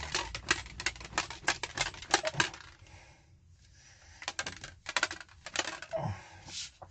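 Plastic protein shaker cup being shaken to mix clear whey isolate powder into water, its contents knocking inside in rapid clicks, about five a second. The shaking pauses for about a second and a half midway, then starts again.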